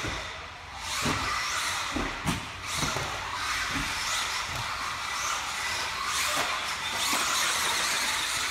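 Team Durango DEX410 V5 1/10 electric four-wheel-drive RC buggy driving on a dirt track: the motor whines up and down with the throttle over tyres scrabbling on the dirt. Several low thuds come in the first four seconds.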